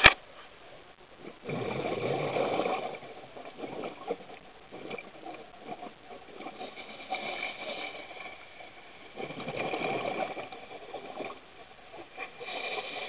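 Scuba diver breathing through a regulator, heard underwater: exhaled bubbles burble twice, about seven seconds apart, with a fainter, higher crackly hiss between them. A sharp click comes at the very start.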